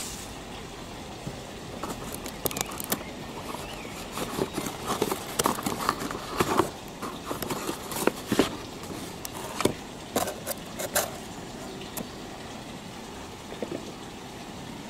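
Unboxing handling: bubble wrap crinkling and a cardboard box being moved, its flaps scraping and knocking, in a run of sharp clicks and rustles from about two to eleven seconds in, over a steady background noise.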